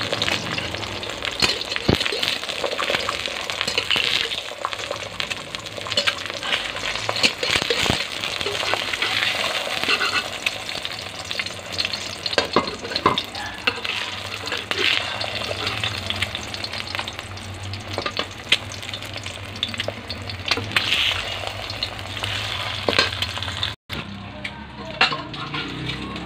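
Egg frying in hot oil in a stainless steel pan: a steady sizzle with many small crackles and pops. It cuts off near the end.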